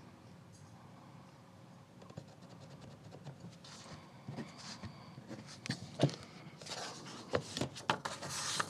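Soft scratching of a mechanical pencil on paper as marks are made and ticked off on a printed pattern, then book pages rustling as a page is turned and tucked under an elastic band, with one sharp tap about six seconds in.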